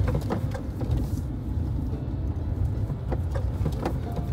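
Car driving slowly over a badly broken road: a steady low rumble, with small knocks and rattles scattered through it from the bumps.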